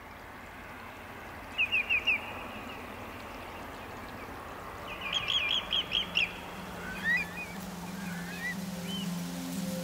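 Wading birds calling over a steady estuary background hiss. There is a quick run of four sharp, high calls, then a longer burst of similar piping calls about halfway through, and near the end softer rising whistled calls.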